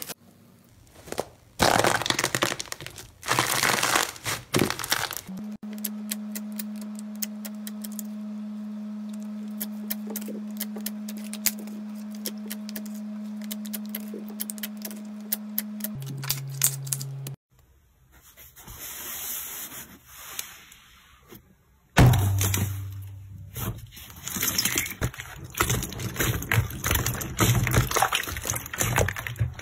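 Slime being squeezed and stretched in a run of short close-up clips, making crunchy crackling and popping. A steady low hum sits under fine clicking for about ten seconds in the middle, and dense crackling fills the last several seconds.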